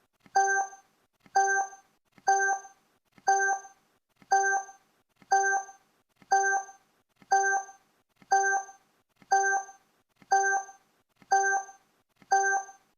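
Countdown timer's tick sound effect: a short pitched blip opening with a click, repeated exactly once a second, identical each time.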